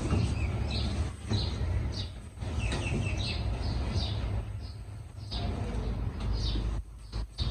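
Small birds chirping repeatedly in short calls over a steady low rumble.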